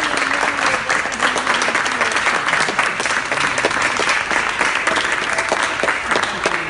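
A small crowd giving an ovation: many hands clapping steadily and densely.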